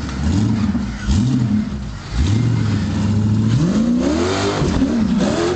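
Rock-crawling buggy's engine revved in short throttle blips, three in the first two seconds, then held at higher revs and pushed higher still about four seconds in, its pitch rising, as the buggy works up a rock ledge.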